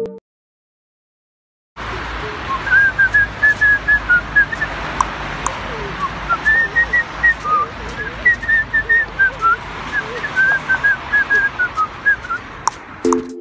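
A man whistling a tune of short, quick notes in several phrases, starting about two seconds in after a brief silence.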